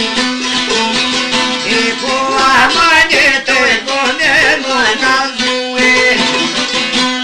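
Albanian folk song: a plucked long-necked lute playing a quick melody over a steady drone note, with a voice singing an ornamented, wavering line from about two seconds in until about five seconds in.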